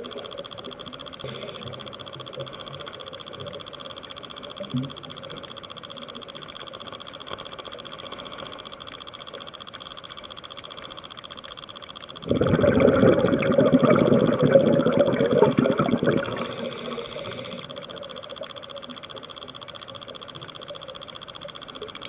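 A scuba diver's exhaled breath bubbling out of the regulator, a loud crackling rush that starts about twelve seconds in and lasts about four seconds. Around it, the steady faint hum and hiss of the underwater background.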